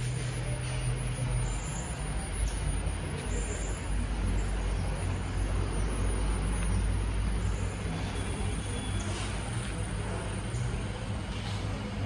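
Yamaha RayZR 125 scooter running on the move, with a steady low engine hum under road and wind noise.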